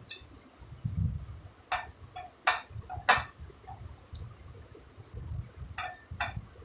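Close-up eating sounds from a mukbang: low chewing, with about seven sharp clicks or clinks scattered through it, from the mouth or from utensils on the plate.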